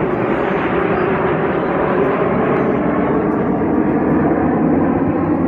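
Jet aircraft flying past in formation: a loud, steady jet engine noise.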